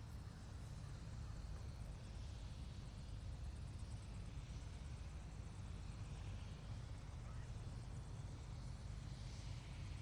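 Helicopter running, a steady low rumble without sudden changes.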